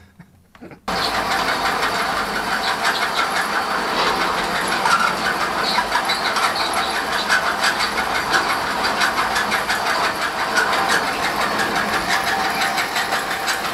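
Shooting-range target carrier's electric motor running its trolley along the overhead rail, a steady motor hum with fast rattling and clicking from the track, starting abruptly about a second in.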